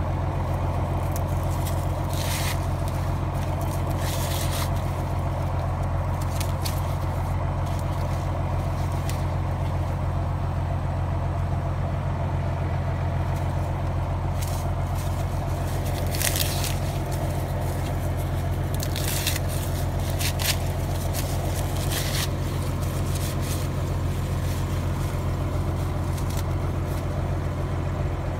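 Tractor engine and forage chopper running at a steady speed, a constant low hum. Corn leaves brush and rustle briefly several times.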